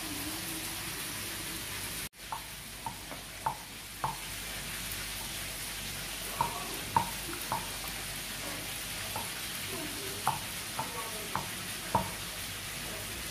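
Wooden pestle pounding chopped tomato, chilli and herbs in a clay bowl to make Gazan dagga salad: about fourteen irregular knocks, one or two a second, over a steady hiss.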